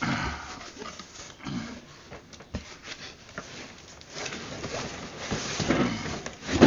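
Cardboard packaging being handled: rustling and scraping as a boxed item is worked out of a shipping box, with scattered small knocks and a louder knock right at the end.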